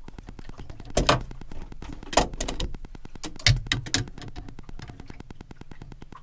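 Irregular metallic clinks and knocks of a nut, washer and hand tools being handled while the nut is worked onto a boat's propeller shaft coupling. The loudest knocks come about one, two and three and a half seconds in.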